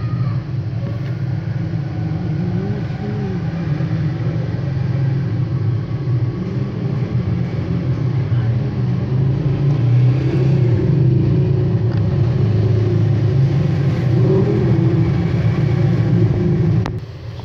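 Steady low rumble of a motor, with a fainter pitch that wavers up and down over it. It drops away suddenly with a click near the end.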